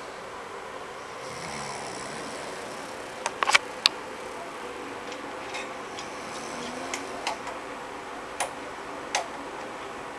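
Steady room hum in a quiet bedroom, with a scatter of sharp clicks and ticks; the loudest is a quick cluster about three and a half seconds in. Between the clicks the sleeping man's snoring comes through only faintly, as soft low swells around two seconds in and again near seven seconds.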